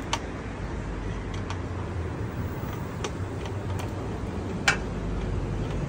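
A few sharp little clicks and ticks from hands working an electrical cable at the plastic end of an LED batten fixture, the loudest about four and a half seconds in, over a steady low hum.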